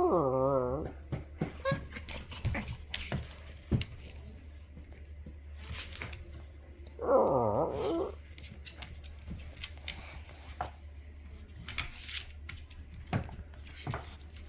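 Pit bull making two drawn-out, wavering whining groans, one right at the start and one about seven seconds in, with short rustles and clicks in between.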